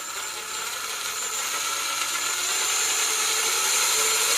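Cordless 18-volt power tool motor running with a steady whine, growing gradually louder.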